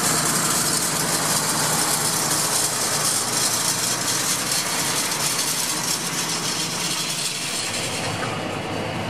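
John Deere tractor's diesel engine running steadily as it pulls a spring-tine harrow through dry soil, with a strong high hiss over the engine note. The hiss drops away near the end, leaving the engine.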